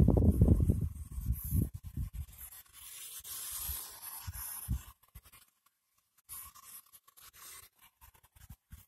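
PX-B7 spirit box sweeping through radio frequencies: a choppy hiss of static, broken by abrupt cut-outs, with low rumbling bursts in the first second or two.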